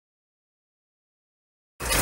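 Dead silence, then near the end a sudden cut into the loud running of the Tata 715 truck's Cummins diesel engine, heard from inside the cab.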